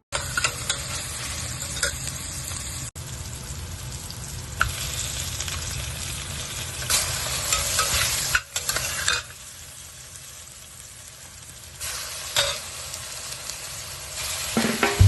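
Food sizzling as it fries in a pan, with scattered clicks and scrapes of a utensil stirring it. The sizzle drops lower for a few seconds past the middle, then picks up again.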